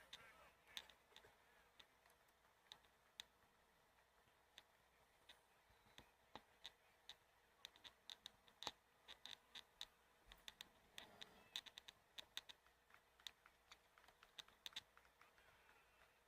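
Faint, irregular sharp clicks and ticks, thickest through the middle and later part, over a quiet background.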